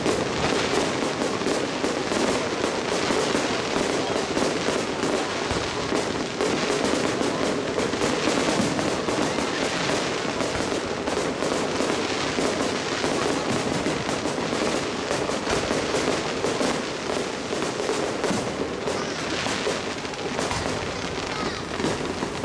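Aerial fireworks bursting in rapid succession: a dense, continuous crackle of many small bangs.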